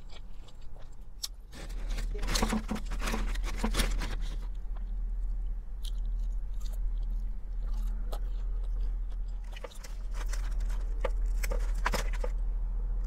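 Close-miked eating: chewing and crunching of vinegary coleslaw and fried chicken, with runs of crackly crunches about two seconds in and again near the end, over a steady low hum.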